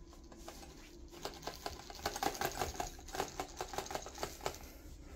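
Rapid run of light clicks and taps from cats' claws and paws moving on a tile floor, starting about a second in and dying away near the end.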